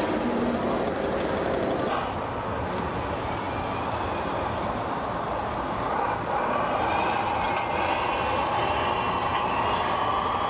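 Radio-controlled model vehicle running steadily, with a whine that grows stronger and rises slowly in pitch over the second half, above a continuous rumble.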